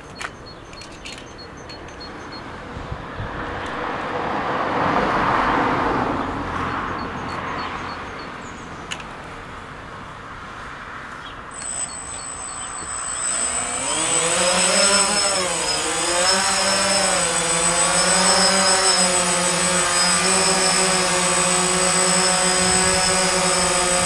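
DJI Phantom quadcopter's motors and propellers starting up about twelve seconds in, with a high whine. The buzz rises and dips in pitch as it lifts off, then holds steady in a hover. Before that, a broad swell of noise, loudest about five seconds in.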